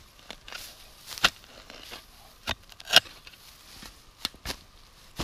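A shovel blade chopping into grassy soil: about five sharp, separate strikes, the loudest about three seconds in.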